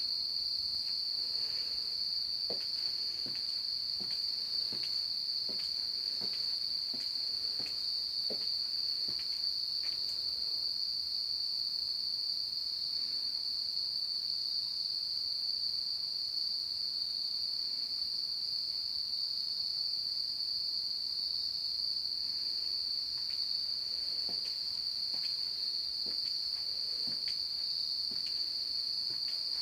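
Insects singing in chorus: a loud, unbroken, high-pitched trill that holds steady in pitch and level throughout.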